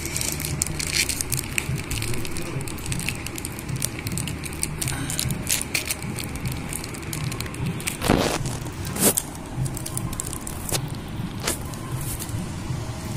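Foil Pokémon booster pack wrapper crinkling and tearing as hands work it open: many small sharp crackles, with two louder crinkles about eight and nine seconds in. A steady low rumble runs underneath.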